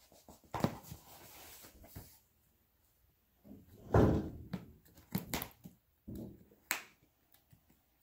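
Packing tape being pulled and torn on a heavily taped cardboard box, with scraping and sharp clicks from the box being worked open.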